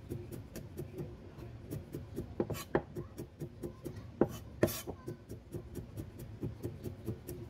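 Steel cleaver chopping garlic on a wooden chopping board: quick, even strokes about four a second, with a few harder knocks near the middle.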